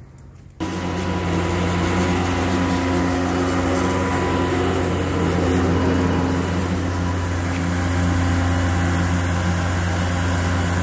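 Boat engine running steadily: a low hum with overtones over a broad hiss, cutting in abruptly about half a second in.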